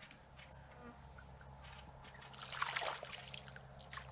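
Light splashing and trickling of shallow water as a crucian carp is let go by hand at the water's edge. The loudest splash comes a little past halfway, over a faint steady low hum.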